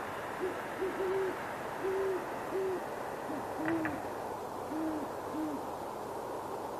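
A pair of great horned owls hooting back and forth: a run of about five deep hoots, then an answering run of four slightly lower hoots. A steady background hiss sits under them.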